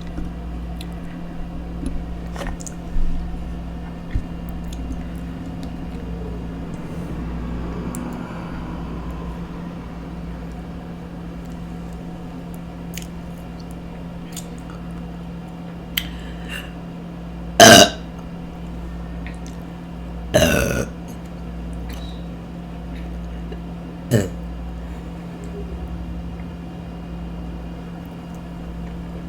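A woman burping several times, spaced out, over a steady low hum. A small burp comes early. In the second half come a sharp loud burp and then a longer, rougher one a few seconds later, with another short burp after that.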